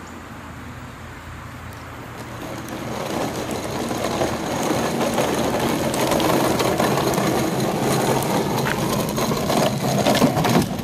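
Hard plastic wheels of a toddler's ride-on toy cart rolling over rough asphalt as it is pushed along, a grainy rumble that grows louder from about two seconds in as the cart comes closer.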